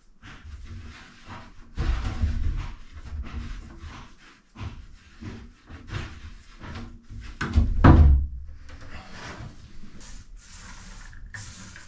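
Plywood cabin-sole panels being handled over wooden floor beams: irregular knocks, bumps and scrapes of wood on wood, with one loud thump about eight seconds in. A higher, scratchy rustle follows near the end.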